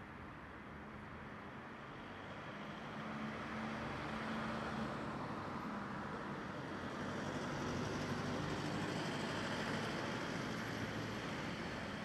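Distant road traffic: a steady hiss with a low hum that swells in the middle and eases near the end.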